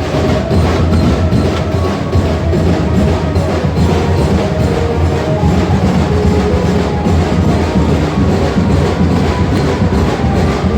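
Loud Ganpati procession music: drums and percussion beating a steady rhythm, with a melody line over them.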